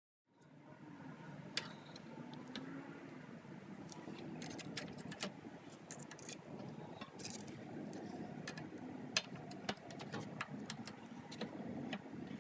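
Small metal parts clicking and clinking as a motorcycle foot peg, its pin and spring clip are handled, with scattered sharp clicks over a low steady background.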